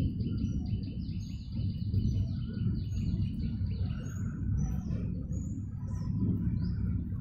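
A bird chirping in a fast, even series of short high chirps, about five a second, that stops about four seconds in, with other short bird calls scattered through, over a steady low rumble.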